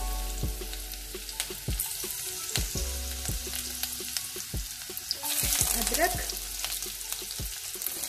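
Chopped garlic sizzling in a couple of spoonfuls of hot oil in a kadhai, a steady hiss with many small crackles and pops. The sizzle swells louder for about a second a little past halfway.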